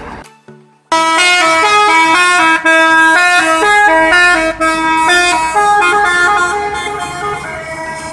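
Multi-trumpet telolet horn on a Gunung Harta bus playing a quick tune, several horn notes sounding together and stepping through the melody. It cuts in suddenly about a second in and fades over the last few seconds as the bus pulls away.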